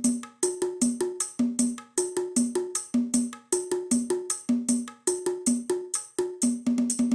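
Drum kit playing a fast, steady pattern for a sound test: pitched drum hits alternating between a lower and a higher note, about four to five strokes a second, each with a bright cymbal or hi-hat sizzle on top.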